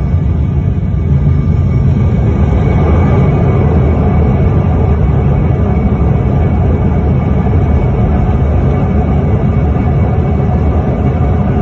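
Jet airliner cabin noise heard from a window seat over the wing while the plane rolls along the ground: a loud, steady low rumble of engines and airframe, with faint steady whining tones above it.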